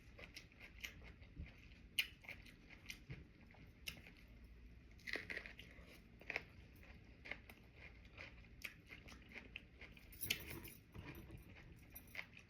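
A person chewing sushi close to the microphone: irregular soft clicks and mouth smacks, with a louder flurry about ten seconds in.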